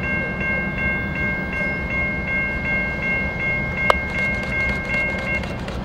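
A railroad bell ringing about two and a half strokes a second, stopping shortly before the end, over the low rumble of a train. One sharp click sounds about four seconds in.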